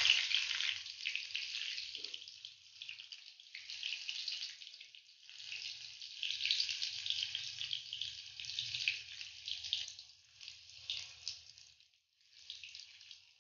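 Moong dal pakodas deep-frying in hot oil in a kadhai: the oil sizzles and crackles, rising and falling in waves, with a brief break near the end.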